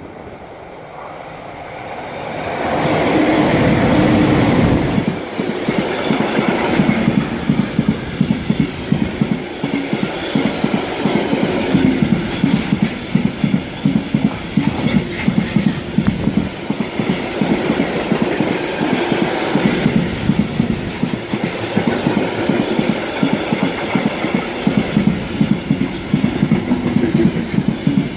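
An electric locomotive hauling a freight train passes close by a few seconds in, the loudest moment, followed by a long line of bogie hopper wagons rolling past, their wheels clattering over the rail joints in a steady quick rhythm.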